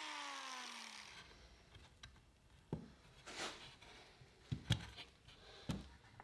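Biscuit joiner's motor winding down after being switched off, its whine falling in pitch and fading over the first second. After that come a few scattered light knocks and clicks of wooden frame parts being handled on the bench.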